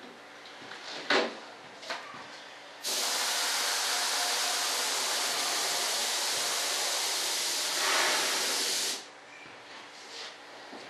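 Paint being sprayed: one steady, even hiss that starts about three seconds in, runs for about six seconds and cuts off sharply. A couple of faint clicks come before it.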